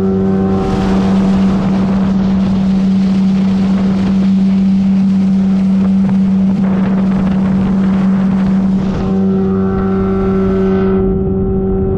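Boat motor running steadily while the boat travels at speed, a constant engine hum under a rush of wind that dies away near the end.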